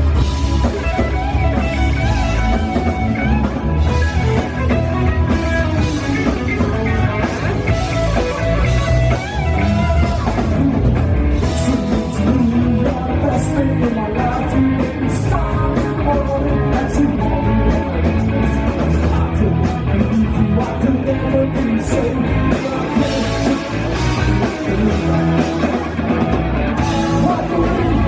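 A rock band playing live: electric guitar over bass and drums, at a steady full level.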